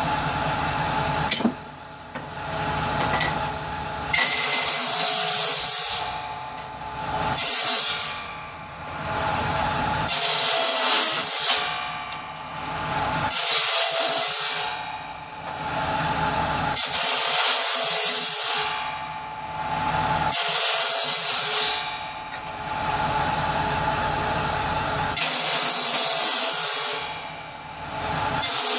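Power saw cutting firewood into kindling: about eight cuts of a second or two each, one roughly every three seconds, with the motor running steadily between cuts.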